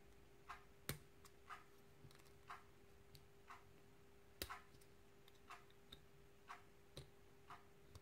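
Near silence with faint, evenly spaced ticking, about two ticks a second, over a faint steady hum.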